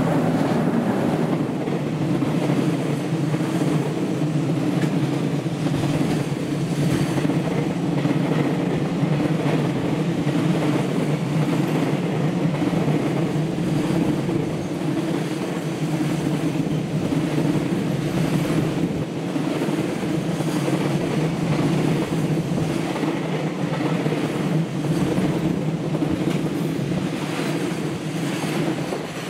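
Container freight train hauled by an EF210 electric locomotive passing close by. The locomotive goes by at the start, then a long string of container wagons rolls past with a steady, loud running noise of wheels on rail and scattered clicks over rail joints.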